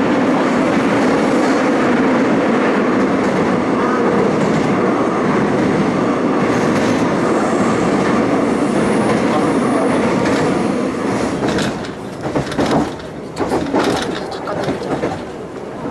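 Seoul Subway Line 7 train running through a tunnel, a loud steady rumble heard from inside the car. About eleven seconds in, the train comes out onto an open bridge deck: the rumble drops and turns uneven, with a few sharp wheel clacks.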